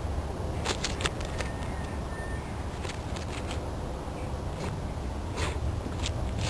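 Jack Russell terrier digging and nosing in loose sandy soil, a scatter of short scrapes and sniffs, over a steady low rumble of wind on the microphone.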